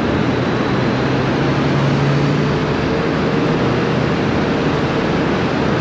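Motorcycle engine and the surrounding traffic making a steady drone while riding slowly through a road tunnel. A low hum holds for the first half, and a higher steady tone comes in about halfway.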